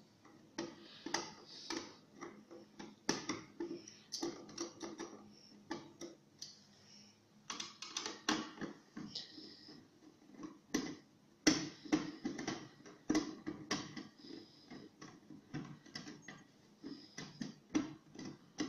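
A screwdriver working the small screws out of a fusion splicer's metal case: irregular clicks and short scrapes of metal on metal, with the case being handled.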